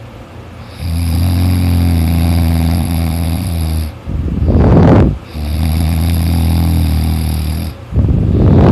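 A person snoring loudly in deep sleep: two long, steady droning snores of about three seconds each, each followed by a shorter, louder, rough noisy breath.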